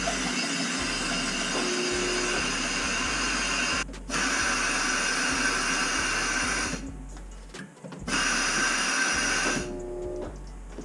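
Compressed air blowing the water out of a washing machine's supply lines, a steady rushing hiss of air and spitting water into the washer. It breaks off briefly about four seconds in and again for about a second near seven seconds, then starts again.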